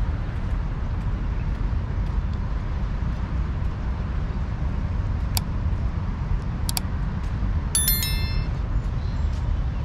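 Urban ambience on a walk: a steady low rumble with a few sharp ticks, and a brief cluster of metallic clinks and rings about eight seconds in.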